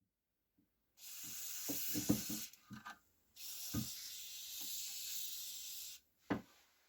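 Aerosol spray can hissing in two bursts, the first about a second and a half long and the second about two and a half seconds, with a few light knocks in and between them.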